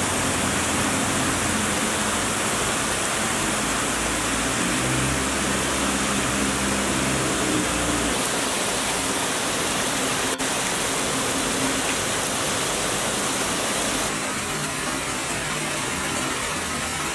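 Heavy downpour: a steady, dense hiss of rain. A low rumble from cars on the flooded street runs through about the first eight seconds. There is a brief click about ten seconds in, and the rain is a little quieter over the last few seconds.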